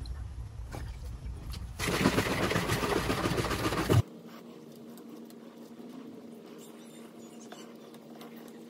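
Handling noise of a plastic spray bottle being filled and mixed, with a loud stretch of about two seconds that cuts off abruptly, then faint scratching of a felt-tip marker writing on the plastic bottle over a low steady hum.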